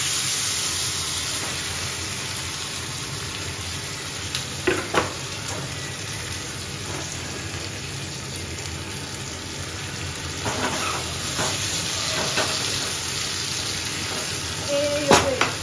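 Chopped onions and tomatoes sizzling in hot oil in a small pan on a gas stove, a steady frying hiss. A metal slotted spoon clinks and scrapes against the pan as they are stirred, a few times around the middle and near the end.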